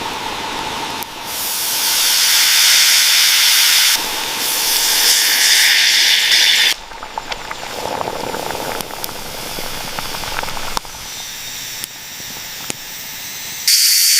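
Fish frying with a steady sizzling hiss and scattered crackles, heard in several segments that start and stop abruptly.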